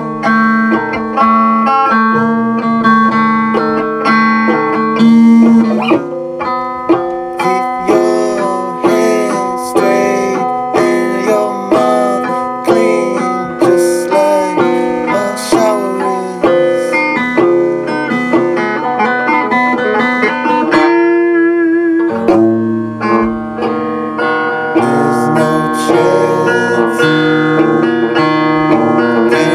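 Instrumental music led by an electric guitar playing a single-note lead line with bent notes over sustained accompaniment; lower notes come in about three quarters of the way through.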